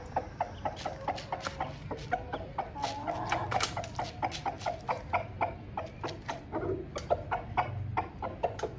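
Chickens clucking: a steady run of short clucks, about four to five a second.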